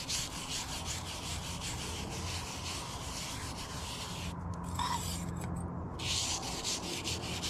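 Small brush scrubbing a rusty cast-iron drill press table wet with acetone and automatic transmission fluid, in fast back-and-forth strokes, working the rust into a slurry. The scrubbing breaks off briefly twice a little past halfway.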